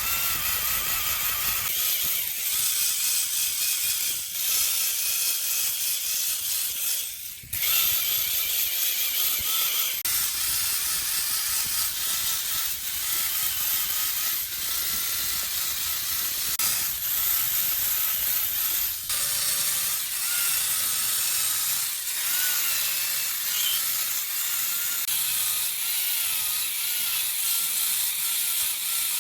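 Chainsaw running and cutting into wood, its pitch wavering under load, with a short dip in level about seven seconds in before it picks up again.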